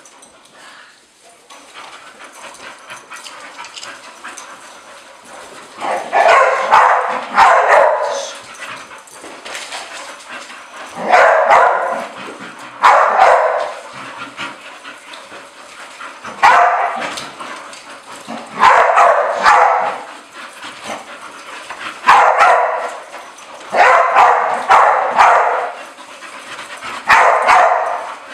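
Bull terriers barking in short bouts that repeat every two to three seconds, beginning about six seconds in. The dogs are excited, jumping for a toy held above them, and there are quieter scuffles between the bouts.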